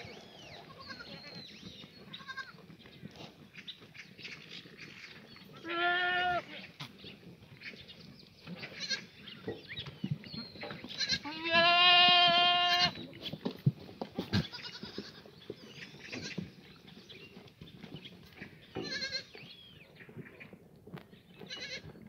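Herd of Korean black goats bleating: one call about six seconds in and a louder, nearly two-second bleat about eleven seconds in, with fainter bleats near the start and around nineteen seconds. Scattered small knocks and rustles run between the calls.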